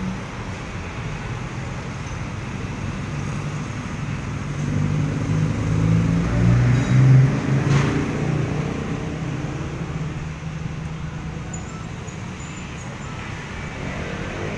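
Road traffic at a bend: motor scooters and cars running past, with a louder vehicle passing about six to eight seconds in.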